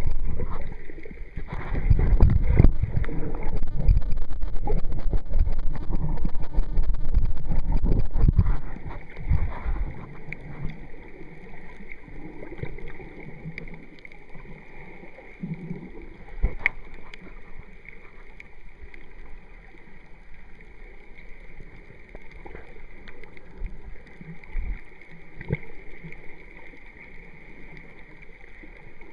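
Underwater sound picked up by a submerged camera: loud low sloshing and rumbling of moving water for about the first nine seconds, then a quieter steady underwater hiss with a few scattered faint clicks.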